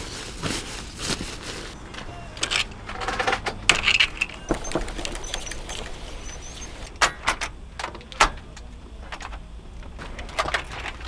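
Rustling and clattering of camping gear being handled, then a few sharp clicks and knocks as a camper van's roll-out awning is wound in and its support legs handled.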